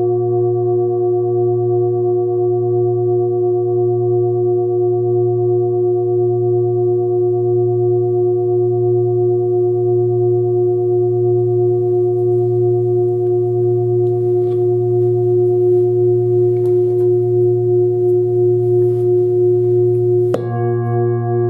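Forged Sun Moon singing bowl, 28 cm across with a fundamental of about 117 Hz (A#), ringing on with a deep steady hum and a beating, wavering shimmer in its overtones. About twenty seconds in, a hand touches the inside of the bowl with a short knock, and brighter, higher overtones ring out.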